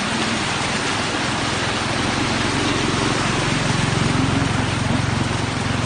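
Steady rush of floodwater with a vehicle engine running underneath; the engine's low hum grows louder about two seconds in.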